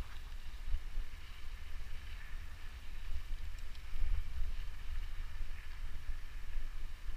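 Wind buffeting the microphone of a mountain bike's handlebar camera while riding a dirt trail: a gusty low rumble over the steady rolling noise of the tyres on dirt.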